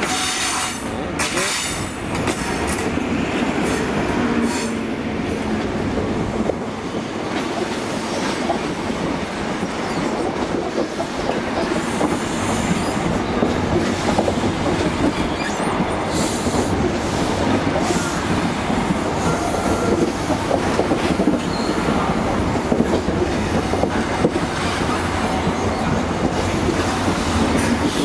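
First Great Western High Speed Train (InterCity 125) pulling into the platform: the Class 43 diesel power car's engine running as it draws up, then the Mark 3 coaches rolling past close by on the rails. The sound is loud and steady throughout.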